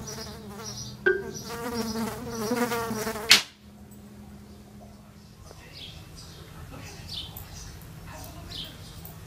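A fly buzzing, its pitch wavering as it moves, with a click about a second in. It is cut off by a loud sharp crack just over three seconds in. After that comes a quieter low hum with faint high chirps every second or so.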